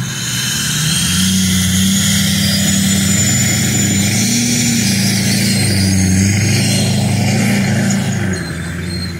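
Off-road vehicle's engine revving hard under load while pulling a stuck vehicle out on a tow strap. The pitch steps up and down and drops away near the end.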